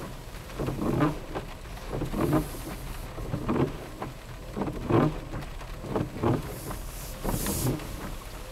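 Rain on a car, heard from inside the cabin while driving: a steady hiss with irregular dull thumps every half second to a second.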